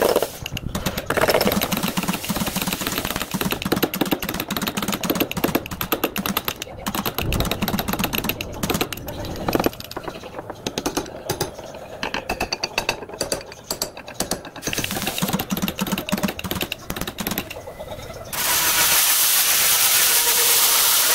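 A stud-welder dent puller and slide hammer pulling dents in a car's steel rear quarter panel: a fast, irregular run of sharp clicks and metal knocks. About 18 seconds in, an angle grinder starts and runs steadily, grinding down the pulled spots.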